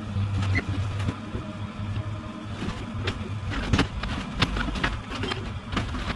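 Excavator's diesel engine running with a steady hum, under repeated clanks and knocks from the working machine, with a deeper rumble in the middle as it works harder.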